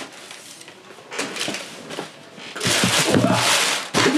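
Sneakers and their cardboard shoebox packaging being handled: rustling and light knocks, with a short burst about a second in and a louder stretch of rustling from about two and a half seconds in, lasting over a second.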